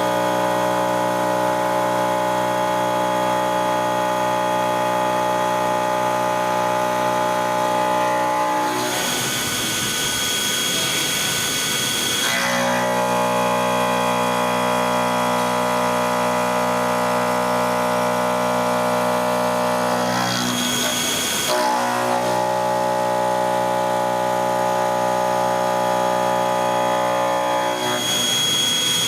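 Kinetic K4000 CNC machine milling, running with a steady multi-tone whine. The whine is broken three times by harsher, noisier stretches with a high-pitched whine: about nine seconds in for roughly three seconds, briefly around twenty-one seconds, and again near the end.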